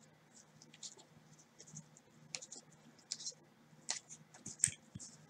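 2017-18 Panini Prizm basketball cards being leafed through one at a time by gloved hands: faint, scattered scratches and clicks of card sliding against card.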